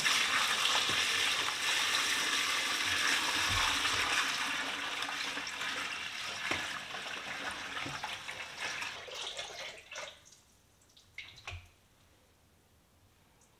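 Brown coffee-dye water poured from a bucket into a stainless steel sink, splashing and gurgling down the drain as the used dye bath is dumped. The pouring thins out and stops about ten seconds in, followed by a couple of light knocks.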